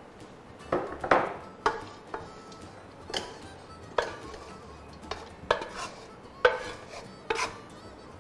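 A metal utensil knocking and scraping against a pan and dish: about a dozen irregular clinks, each with a brief ring, as dry-toasted pine nuts are scooped out of the pan.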